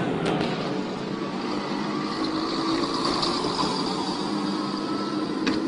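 Steady traffic and engine noise heard from inside a vehicle's cabin, with a couple of faint clicks near the end.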